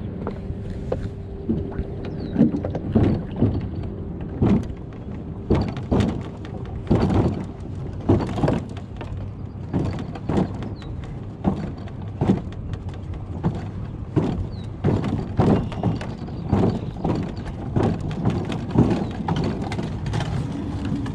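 Sportyak 245 plastic boat being wheeled up a ridged concrete boat ramp: irregular thunks and rattles, one or two a second, over a steady rolling rumble as the hull and the gear inside jolt over the ridges.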